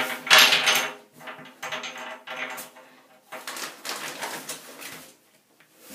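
Metal bathtub drain plug clattering and scraping against the tub in several bursts as a Doberman puppy paws and noses at it, the loudest clatter about half a second in.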